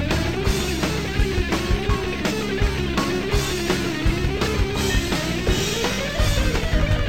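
Background rock music: a wavering lead guitar line over a steady drum beat and bass.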